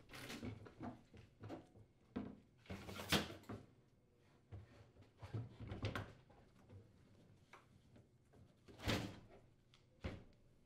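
Handling noise as a glass-topped electric downdraft cooktop is lowered into a countertop cutout and slid into place: faint scrapes and knocks, with louder thuds about three seconds in and near the nine-second mark.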